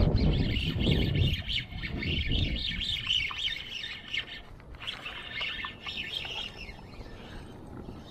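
Several birds chirping and calling over open water, busiest in the first six or seven seconds. A low rushing noise is loudest at the start and fades out after about two or three seconds.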